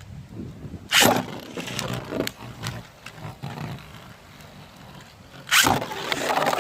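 Beyblade launchers ripped with a loud zip about a second in and again near the end, with scattered clicks and clatter in between. After the second rip, steady whirring and scraping of spinning tops in the plastic stadium, getting louder.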